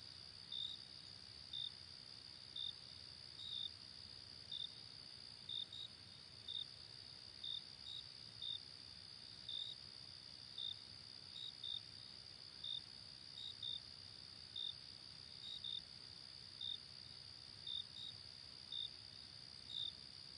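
Faint crickets: a steady high-pitched trill with separate short chirps about once a second, some in quick pairs.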